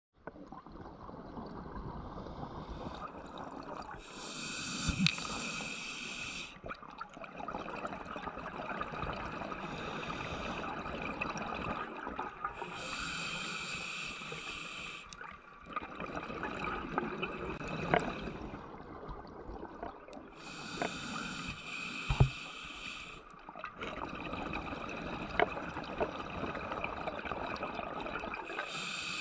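A diver's breathing heard underwater through the breathing gear: a hiss of about two to three seconds comes back roughly every eight seconds, with bubbling and gurgling between breaths and a few sharp clicks.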